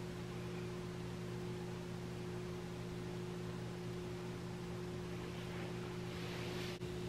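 Steady low electrical hum under a constant hiss: room tone. A soft rustle swells near the end.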